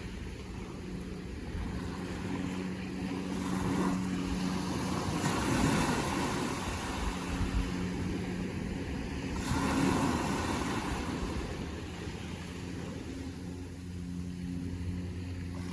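Ocean waves washing in, surging twice, about a third of the way in and again just past the middle, with a steady low hum running underneath for much of the time.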